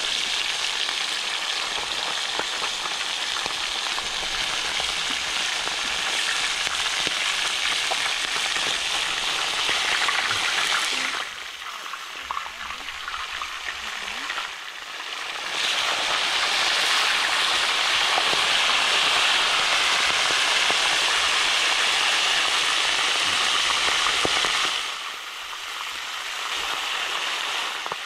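Food frying in hot fat in a plough-disc pan (disco) over a ground fire: a steady, dense sizzle that drops away for a few seconds twice, about eleven seconds in and near the end.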